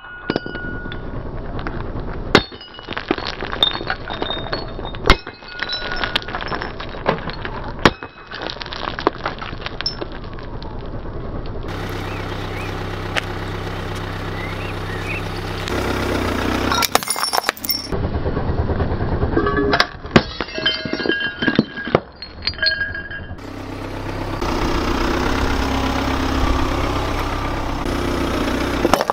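Glass bottles smashed one after another with a hatchet on asphalt: repeated sharp strikes, each with shattering glass and shards clinking. Near the end, a car rolls slowly on asphalt.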